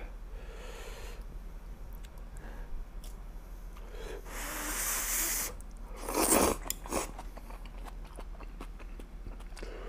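A person eating instant noodles from budae jjigae (Korean army stew): a long slurp a little over four seconds in, louder slurps around six and seven seconds, chewing, and light clicks between.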